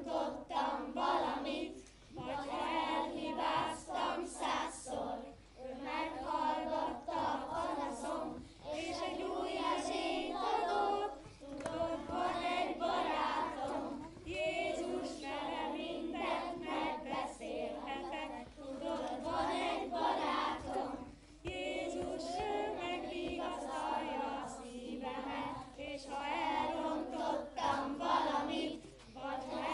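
A group of children singing a simple action song together in short phrases with brief pauses, a woman's voice singing along with them.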